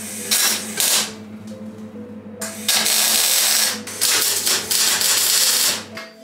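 MIG welder arc welding a steel beam: a short burst of sizzling crackle, then two longer runs of a second and a half to two seconds each. A steady low hum sits underneath and stops near the end.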